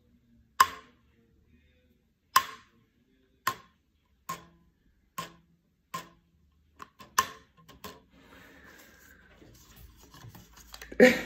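Kitchen rubber bands stretched over a plastic plate plucked one at a time as a homemade mini guitar: about eight short twangs roughly a second apart, each dying away quickly. A brief voice sound comes near the end.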